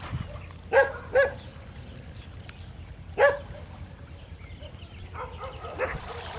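Dog barking: two sharp barks in quick succession about a second in, a third about two seconds later, then a few softer yips near the end.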